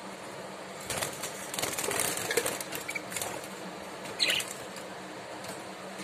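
Pet budgerigars in a cage: from about a second in, a couple of seconds of fluttering and scrabbling, then a single short descending chirp about four seconds in, over a steady background hum.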